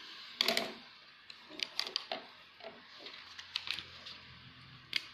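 Desk handling noise: a string of sharp clicks and light knocks as a plastic ruler is lifted off and a sheet of paper is shifted on a table, the loudest about half a second in.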